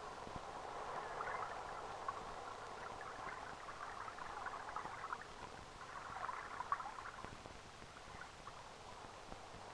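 Faint scuffing and crunching of footsteps on stone rubble, in irregular clusters with one sharper click about two-thirds of the way through, over the steady hiss of an old film soundtrack.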